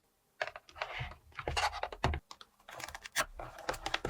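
Hard plastic toy pieces clicking and tapping as they are handled, an irregular run of sharp clicks.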